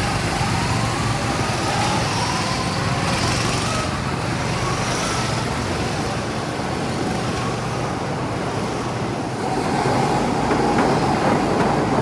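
Go-kart engines running in a steady mechanical drone, with slow rises in pitch as they rev. It gets a little louder near the end.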